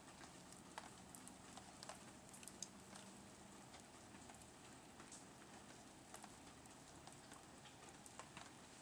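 Faint light rain: a soft steady hiss with scattered, irregular drips ticking on wet steps and flower pots.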